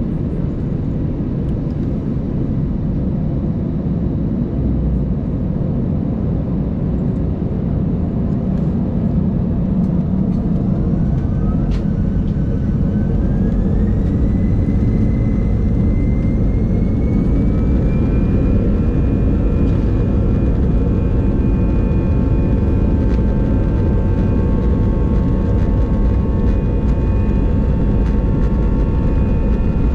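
Airbus A220's Pratt & Whitney PW1500G geared turbofans heard inside the cabin: a steady low rumble, with a whine that rises in pitch about a third of the way in and then holds as the engines spool up for departure, growing slightly louder.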